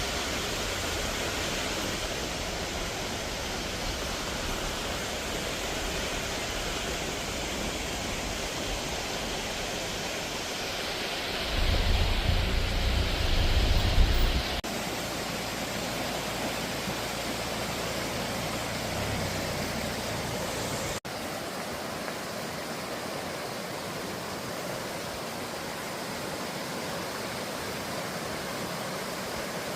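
Rushing water, a steady hiss like a stream or waterfall in full flow. A louder low rumble rises over it for a few seconds near the middle. About two-thirds of the way in, the sound changes abruptly to a thinner hiss.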